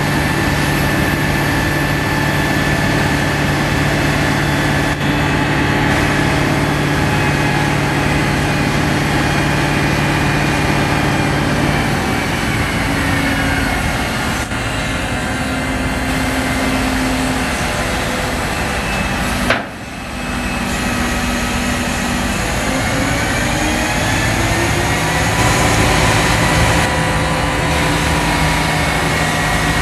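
Diesel engine of a Liebherr LTM 1070-4.2 mobile crane running, its pitch falling a little before halfway and rising again in a slow climb later on as the revs change. The sound drops out abruptly for a moment about two-thirds through.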